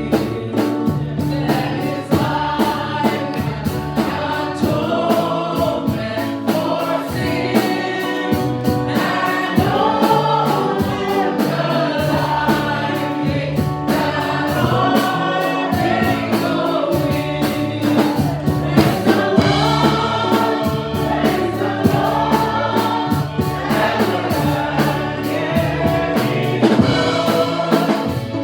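Gospel praise-and-worship song: a choir and congregation singing over a band with bass and a steady drum beat.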